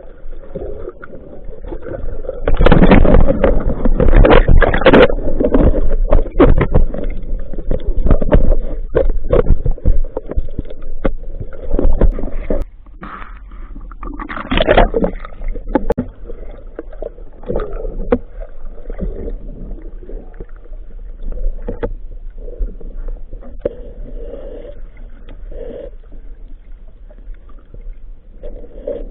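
Muffled underwater rumble and water movement heard through a camera's waterproof housing, with many sharp knocks and scrapes, busiest and loudest in the first half, then settling to a softer rumble.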